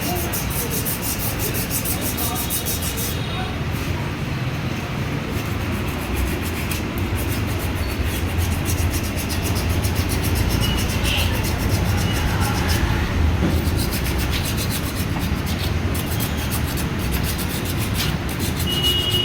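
Motorcycle brake making a continuous rubbing, grinding noise over a low rumble, the train-like sound of a brake fault. It swells a little in the middle.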